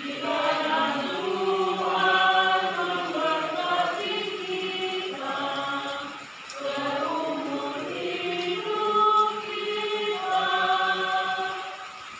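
A woman cantor singing a slow liturgical chant solo into the lectern microphone, in two long phrases with a breath between them about six seconds in.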